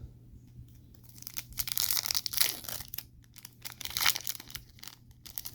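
Foil trading-card pack wrapper being torn open and crinkled, in two main bursts of crackling about a second apart, with smaller crinkles near the end.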